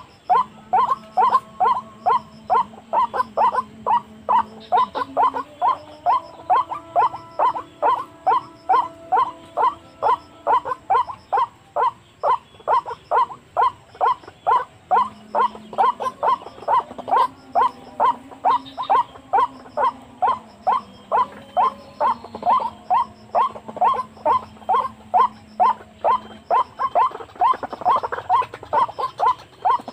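White-breasted waterhen calls: a monotonous note repeated about three times a second without a break, the repeated call used as a lure to draw the bird to a snare.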